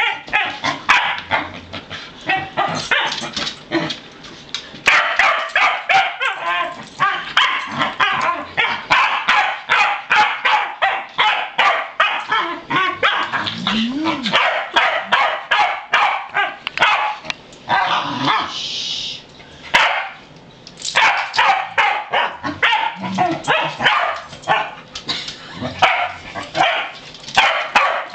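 Pembroke Welsh Corgi barking and yipping in excitement at being leashed to go out, several rapid barks a second almost without pause, with a short break a little past two-thirds of the way.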